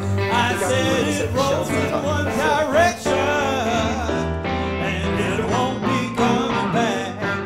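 Blues song: a man singing over guitar and keyboard.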